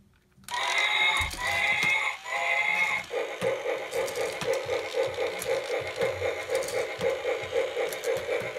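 Electronic toy Tyrannosaurus rex, set off by a press on its back, plays three short recorded roars, then a rhythmic pulsing electronic sound at about three beats a second.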